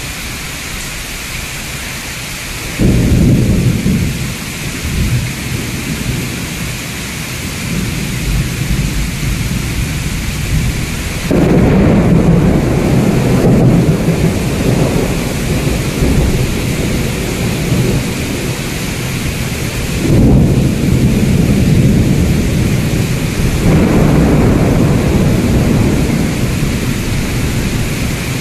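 Heavy rain pouring down steadily with several long rolls of thunder; deep rumbles swell up about three seconds in, again near the middle, and twice more in the last third.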